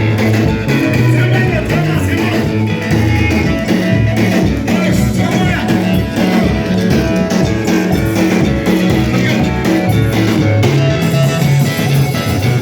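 Church worship music from a band, guitar and bass to the fore, playing loud and steady with a regular beat.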